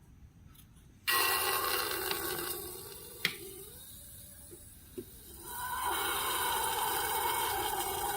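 Slime being squeezed and worked by hand, a wet squishing and rubbing sound that starts suddenly about a second in, with a couple of sharp clicks and a swell past the halfway point.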